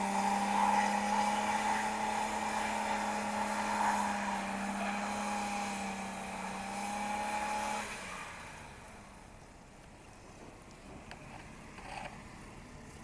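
Pickup truck engine revved hard and held at high revs while its wheels spin in deep snow, with a steady higher whine over the engine note; the revs cut back about eight seconds in.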